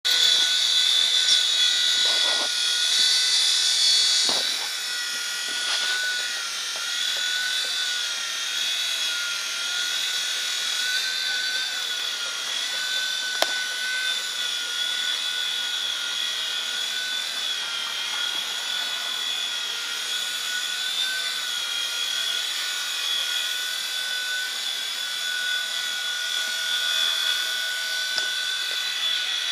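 Small battery-powered RC copter in flight, its electric motors and rotors giving a steady high-pitched buzzing whine whose pitch wavers slightly with throttle. It is louder for the first few seconds, and there is one sharp click about halfway through.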